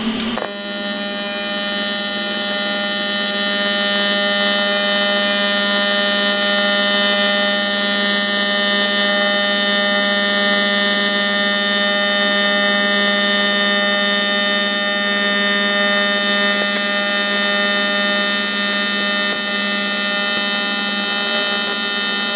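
AC TIG welding arc from an AHP AlphaTIG 200X set to 200 Hz AC frequency, welding aluminum: a loud, steady buzz pitched at the 200 Hz AC frequency, starting about half a second in.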